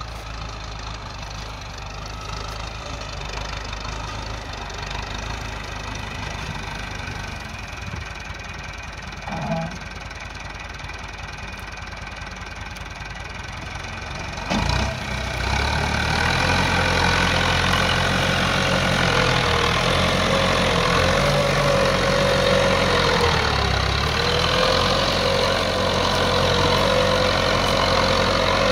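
Massey Ferguson 285 S tractor's four-cylinder diesel engine running steadily under load as it pulls a single-tine subsoiler through dry, stony ground. About halfway through it becomes louder and closer, with a wavering whine over the engine note.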